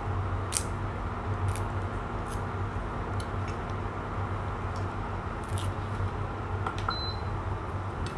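Portable induction cooktop humming steadily under a pot of simmering curry, with scattered light clicks, and one short electronic beep from the cooktop about seven seconds in.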